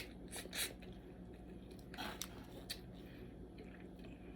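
Faint wet crackles and squishes of a blue crab being picked apart and eaten: a few short sounds of shell and meat, clustered near the start and again around two seconds in.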